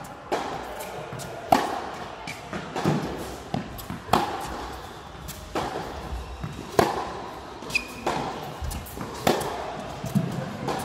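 Tennis balls struck back and forth in a baseline rally, a sharp racket hit about every 1.3 seconds with quieter ball bounces between, echoing in a large indoor hall.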